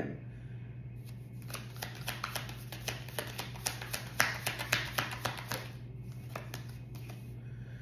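A deck of oracle cards being shuffled by hand: a quick run of soft card clicks and flicks, thickest between about one and six seconds in, over a low steady hum.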